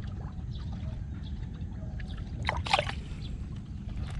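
Brief splash and slosh of water about two and a half seconds in, as a small jaguar cichlid held by the lip is let go and swims off, over a steady low rumble.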